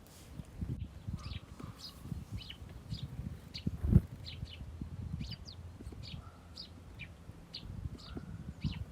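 Small songbirds chirping at a bird feeder, short high chirps two or three a second, over low irregular knocks. One sharp knock about four seconds in is the loudest sound.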